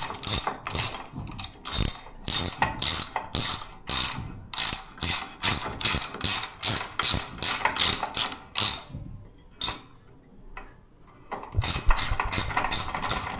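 Ratchet spanner clicking in quick, even strokes, about three clicks a second, as the lower-unit bolts of an outboard motor are backed out. It stops for a couple of seconds about nine seconds in, then resumes.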